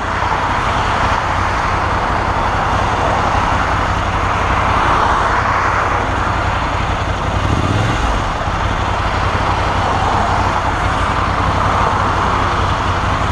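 Motorcycle engine running at low speed in slow traffic, a steady low rumble under a constant rush of wind and road noise on the helmet microphone.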